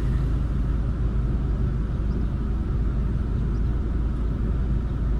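Car engine idling steadily, a low even hum heard from inside the car.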